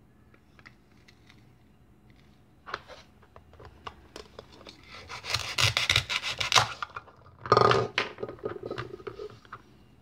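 Velcro joining the halves of a plastic toy avocado ripping apart as a plastic toy knife cuts through it: a rapid crackling tear lasting about a second and a half, about halfway through. A second, shorter rip follows about a second later, with light plastic clicks and rubbing before and after.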